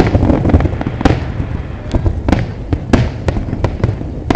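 Fireworks display exploding: a rapid, irregular string of sharp bangs and cracks, several a second, over a continuous low rumble of distant detonations.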